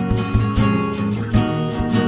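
Background music: an acoustic guitar strumming a steady rhythm.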